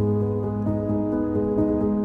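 Background music: gentle held notes that change about every half second, over a steady low bass note.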